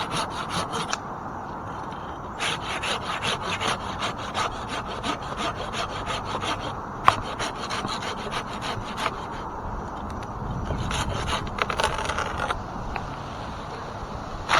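Handsaw cutting through a limb of an ash tree in quick, rhythmic strokes, in several runs with short pauses between them. A single sharp click comes about halfway through.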